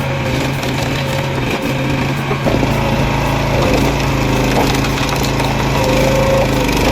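Engine-driven log splitter running steadily while splitting wood, with wood cracking and splintering over the engine. A deeper, heavier engine rumble comes in about two and a half seconds in.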